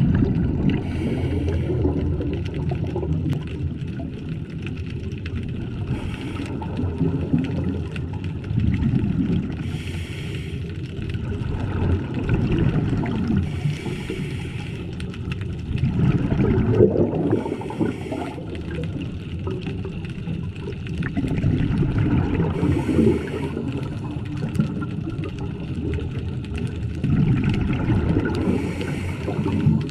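Scuba diver breathing through a regulator underwater: a steady low rumble, with a hissing burst of exhaled bubbles about every four to five seconds.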